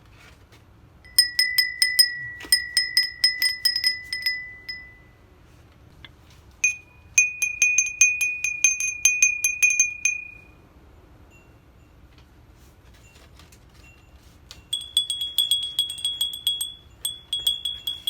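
Three Edo glass wind bells (fūrin) rung one after another, each a run of rapid bright clinks that ring on. Each bell has its own pitch, and each is higher than the one before.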